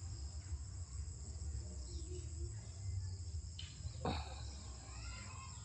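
Insects in a garden chirring with a steady, high-pitched drone, over a low rumble. There is a sharp click about four seconds in.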